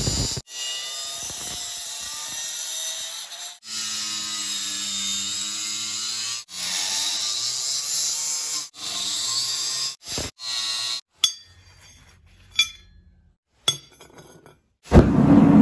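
Angle grinder with a cutting disc biting into a steel bar, its motor whining under the grinding hiss, heard in a string of short cuts with abrupt breaks between them. About 11 seconds in the grinding stops and a few light clinks follow; just before the end a loud steady rushing noise starts.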